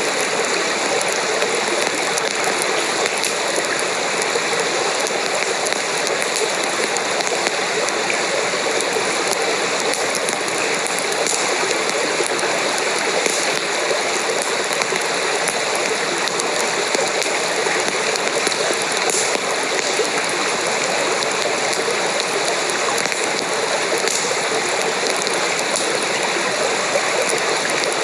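Steady rushing water noise, like a stream or steady rain, with a few faint clicks scattered through it.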